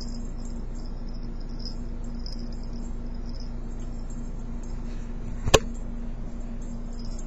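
Steady low electrical hum with a faint high hiss, and one sharp knock about five and a half seconds in as the handheld camera is jolted and swung.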